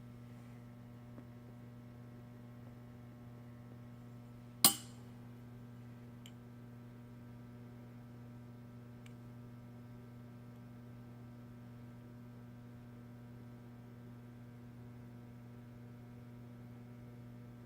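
Steady low electrical hum, with a single sharp click, metal on metal, about five seconds in.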